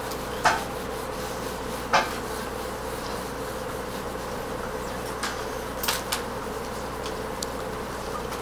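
Pencil strokes scratching on drawing paper during shading, with a few short scrapes or taps, the loudest about half a second and two seconds in. Under them runs a steady electrical buzz.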